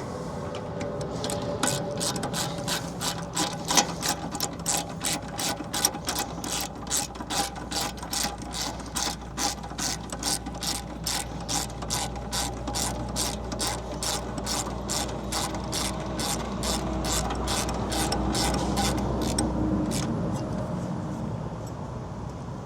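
Hand ratchet wrench clicking in an even rhythm, about two to three clicks a second, as bolts are run in during brake caliper reassembly; the clicking stops near the end.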